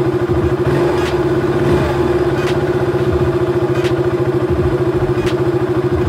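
KTM Duke 200's single-cylinder engine idling steadily, with a faint click about every second and a half. It is charging a battery that had been low, now that the blown rectifier fuse has been replaced.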